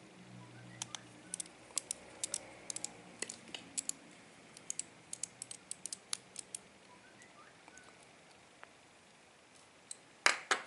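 Small pentalobe screwdriver working the two bottom screws of an iPhone 5: a quick, irregular run of small sharp clicks and ticks of metal tool on the tiny screws and phone body. The clicks stop about six and a half seconds in, and a couple of louder knocks come near the end.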